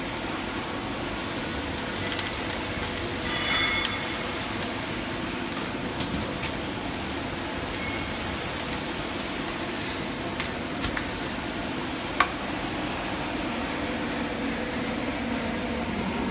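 Corrugated-board slitter-scorer machine running with a steady mechanical hum. A brief squeal comes about three and a half seconds in, and scattered sharp clicks follow, the loudest about twelve seconds in.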